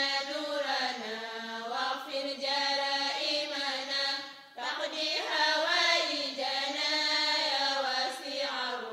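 Vocal chanting in long, held, wavering notes, with a short break about halfway through.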